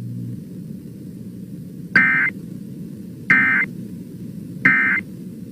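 Emergency Alert System end-of-message data tones: three short, loud, shrill digital bursts a little over a second apart, marking the end of a tornado warning broadcast. A faint steady low hum runs beneath them.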